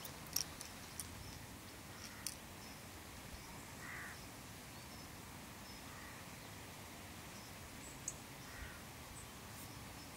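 Faint outdoor background with three distant harsh bird calls about two seconds apart, and a few small sharp clicks, the loudest about half a second in.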